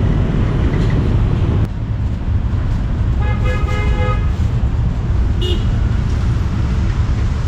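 Steady street-traffic rumble, with a vehicle horn sounding for about a second roughly three seconds in.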